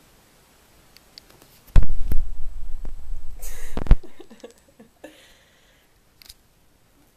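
Camera-handling bumps and rumbling close to the microphone, with rustling: a sharp knock, about two seconds of heavy low rumble, and another knock, then a few faint rustles and ticks.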